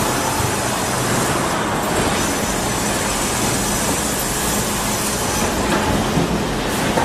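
Sawmill machinery running: a loud, steady mechanical din with a low hum and thin, high, steady whining tones.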